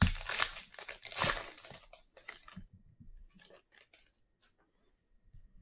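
Foil wrapper of a football trading-card pack torn open and crinkling loudly for about two seconds, then fainter ticks and rustles as the stack of cards is handled.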